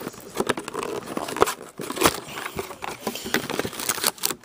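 Cardboard trading-card box being opened by hand and its foil card packs slid out: irregular scrapes, clicks and rustles of cardboard and pack wrappers.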